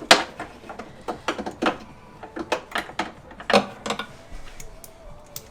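Irregular metallic clicks and clinks of a 10 mm wrench working the nuts that hold a Tesla Model 3 door handle inside the door shell. The loudest clicks come just after the start and about three and a half seconds in.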